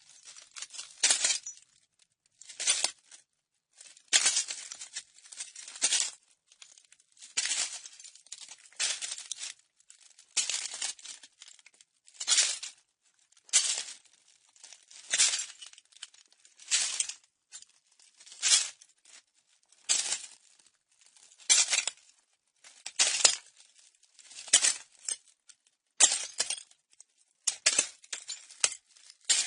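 Slow footsteps crunching on broken glass, one step about every second and a half, each a sharp crunch with small shards clinking.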